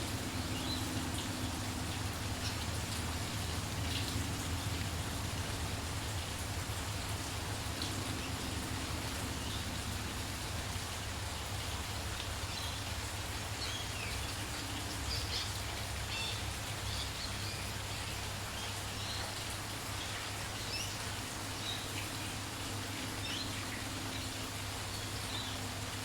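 Steady light rain falling, with small birds giving short, high chirps scattered throughout.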